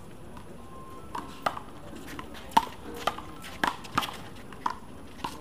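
One-wall handball rally: a small rubber handball smacks sharply and irregularly, about eight times, as it is struck by hand and rebounds off the concrete wall and court.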